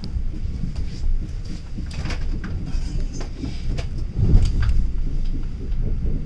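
Moving passenger train heard from inside the carriage: a steady low rumble of wheels on rails with scattered clicks and rattles, and a heavier thump about four seconds in.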